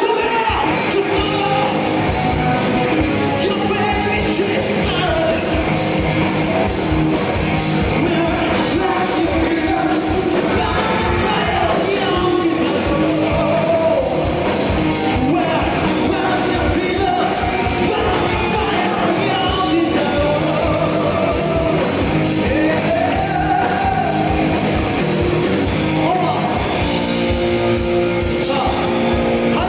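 A rock band playing live: loud, steady drums and band instruments with a singer's voice over them.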